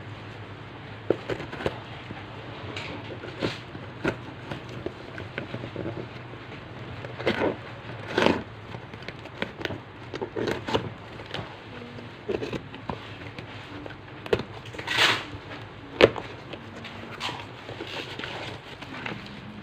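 Packaging being opened and handled: irregular crinkles, clicks and taps, some sharp, over a faint steady low hum.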